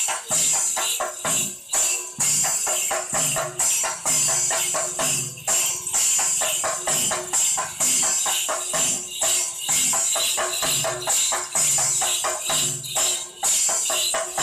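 Traditional Kerala percussion ensemble playing a fast, steady rhythm, led by the bright metallic jangle of small hand cymbals struck many times a second.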